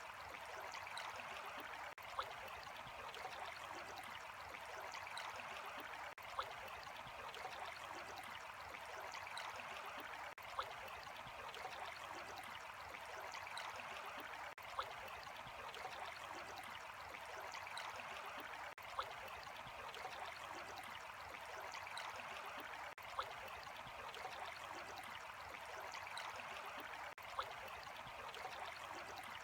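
Water flowing steadily, like a small stream, with a faint click and a brief dip in the sound about every four seconds.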